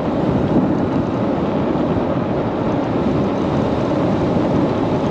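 Steady, loud wind noise rushing over the GoPro Hero 9 Media Mod microphone of a rider moving on an electric scooter, with no engine sound.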